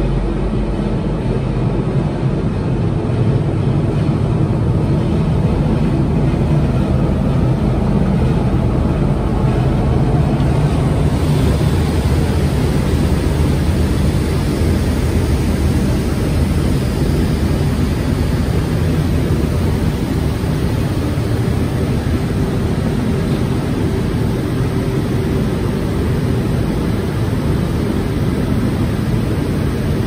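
FOREL 2200A6 vertical glass washing machine running with a loud, steady mechanical drone. A higher hiss comes up about a third of the way in.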